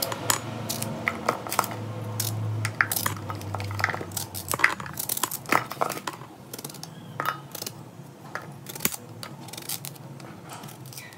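Kitchen knife peeling and cutting raw green bananas over a metal pot, with irregular sharp clicks and taps as the blade and dropped pieces strike the pot. The taps come thicker in the first half and thin out toward the end.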